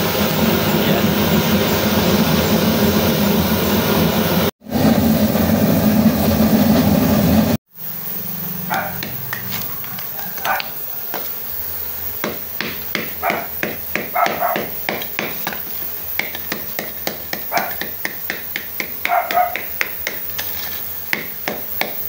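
Homemade kerosene burner, blown with compressor air, blasting a flame over a clay melting crucible with a loud steady rushing hiss. After about seven and a half seconds it cuts off abruptly, giving way to quieter, irregular light clicks and taps of broken clay crucible shards and slag being handled.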